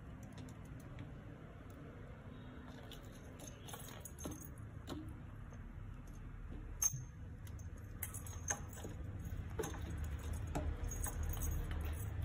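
Plastic toy balls being batted and knocked about on a tiled floor by kittens: scattered light clicks and taps with bits of high jingling, and one sharper click partway through.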